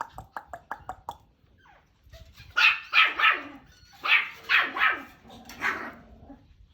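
A dog barking: a quick run of short, high yips in the first second, then a series of about seven louder barks in two bunches.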